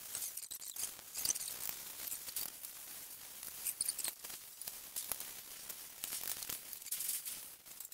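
Paint roller rolling wet paint across a large canvas: an irregular hiss with many small clicks.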